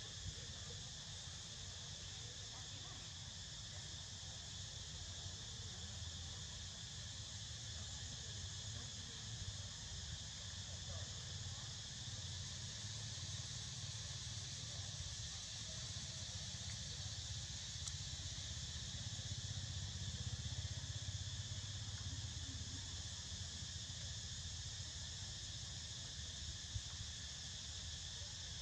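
Steady chorus of insects droning at several high pitches without a break, over a low rumble.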